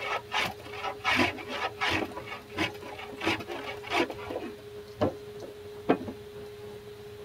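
Hand abrasive work on a small part at a bench: short rasping strokes, about one and a half a second, thinning out after about four seconds to two single scrapes.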